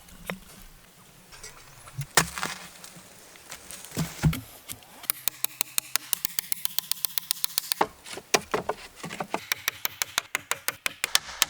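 Wood being worked by hand: a few separate heavy knocks, then long runs of quick, sharp taps, several a second, with a short pause partway through.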